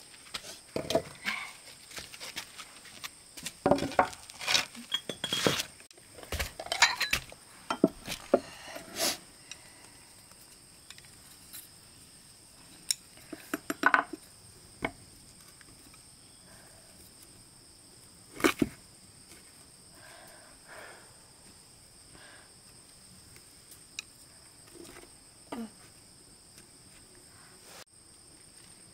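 Irregular knocks and clinks of objects being handled, busiest in the first nine seconds and then only a few, over a steady high-pitched insect drone.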